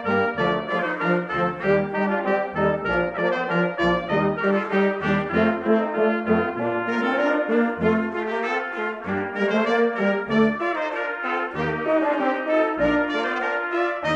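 Live brass ensemble of trumpets, trombones, euphonium and tuba playing together, sustained chords above a moving line of separate low bass notes.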